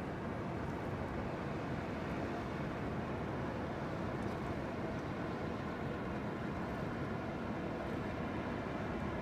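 Steady low drone of an LPG carrier's engines, an even rumble with a faint hum in it and no change throughout.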